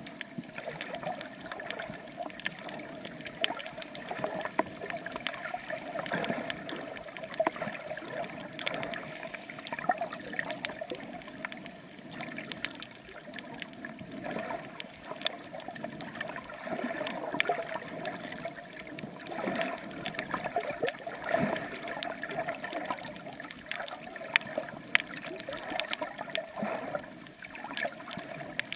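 Water sloshing and gurgling around a snorkeler swimming, heard through a camera held underwater, with many small clicks throughout.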